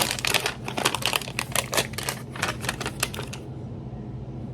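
Rapid crackling and clicking of the toy's plastic packaging being handled and opened, stopping about three seconds in.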